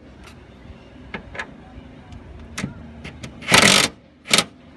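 Cordless impact driver run in two short bursts near the end, the first about half a second long and the second briefly, tightening the top center nut of a rear strut mount. Scattered clicks and knocks of the tool and socket come before it.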